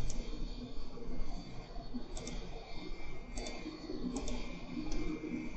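Computer mouse clicking: a handful of sharp clicks, most of them in quick pairs, spaced about a second apart.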